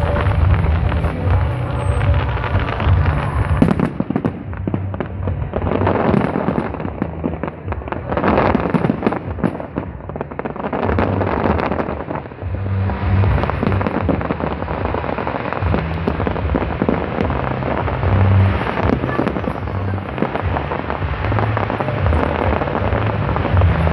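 Aerial fireworks bursting in quick succession: dense crackling and popping from crackle stars and shell breaks, busiest in the middle.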